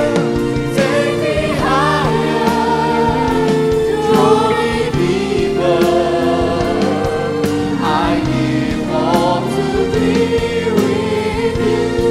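A live Christian worship song sung by a mixed vocal group, a man's voice leading with several women's voices, over a steady sustained musical backing.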